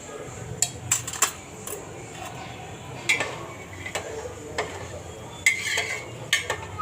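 Metal spoon clinking and scraping against a cooking pot while the khichdi is stirred, with about a dozen irregular sharp knocks.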